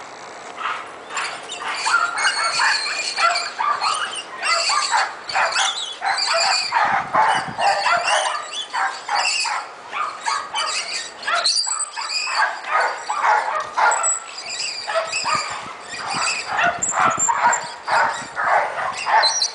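Dogs barking and yipping in rapid, irregular bursts.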